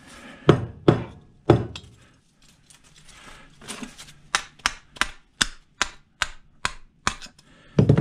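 Hand hammer striking metal on a table fan motor's shaft assembly, knocking at the pin through the shaft to drive it out of the aluminum part. Three heavy blows come first, then after a pause a run of about eight lighter, quicker strikes, two or three a second.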